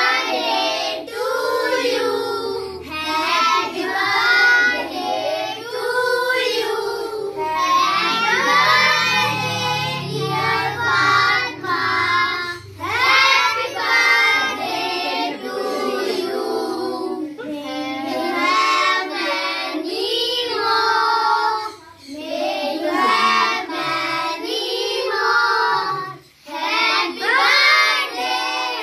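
A group of children singing together, with two brief pauses in the singing near the end.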